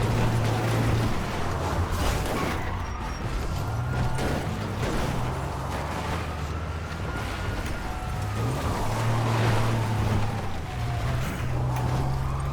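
Video game audio: a car engine running steadily under a police siren wailing in slow rising and falling sweeps.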